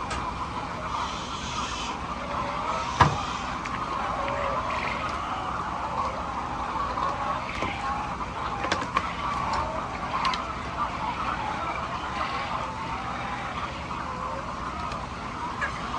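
A flock of hens clucking and chattering continuously in a coop, with a sharp knock about three seconds in and a few lighter clicks.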